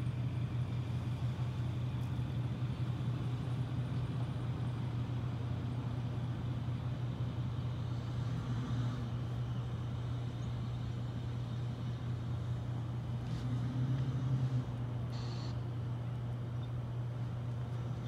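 Steady low rumble of outdoor background noise, like distant traffic or machinery, with one brief high-pitched sound about fifteen seconds in.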